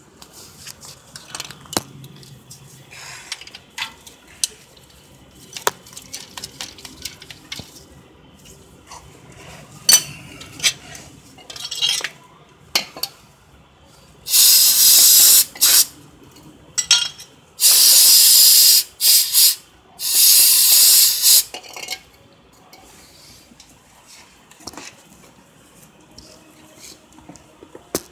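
Aerosol brake cleaner sprayed in three long hissing blasts, each lasting one to two seconds, about halfway in. Before the spraying there are scattered light clicks and knocks of hands and parts under the car.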